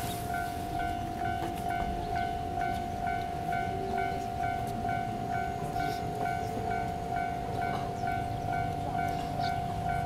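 Japanese railway level-crossing warning bell sounding: an electronic ding repeating steadily about twice a second over a continuous tone. It signals that a train is approaching the crossing.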